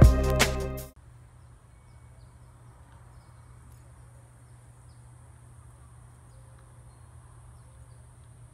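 Background music that cuts off about a second in, leaving faint outdoor evening ambience: a steady high-pitched insect drone with a few faint chirps.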